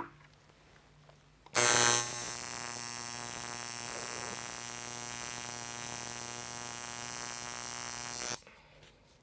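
Electric tattoo machine buzzing steadily as the needle works ink into the skin of a forearm. It starts about a second and a half in, louder for the first moment, and stops shortly before the end.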